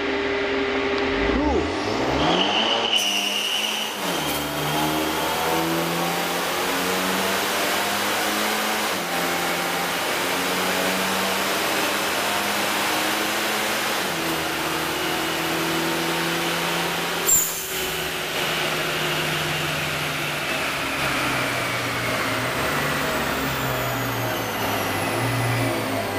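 Car engine running under load on a chassis dynamometer during a power run, its pitch climbing in steps as the revs build. A single sharp crack comes about two-thirds of the way through.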